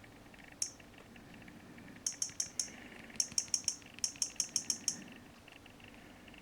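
Sharp taps on a phone: one tap, then quick runs of four to six taps at about six a second.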